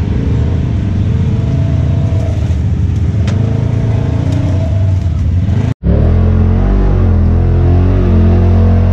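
Side-by-side UTV engine running and revving under load as the machine climbs a muddy trail. About two-thirds of the way through it cuts off suddenly, and a steadier low engine note follows, heard from inside a side-by-side's cab.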